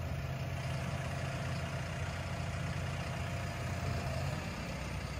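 JLG telehandler's diesel engine idling steadily.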